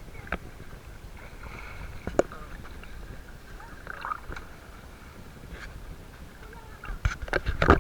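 Water splashing in a shallow river as children play in it: a few single splashes, then a quick run of splashes near the end, over a low steady rumble.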